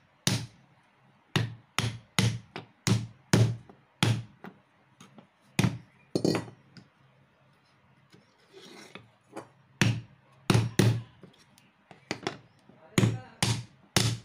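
Steel claw hammer striking the joints of a small teak wood stool frame: a run of sharp knocks, about two to three a second, then a pause of a few seconds and another run of blows.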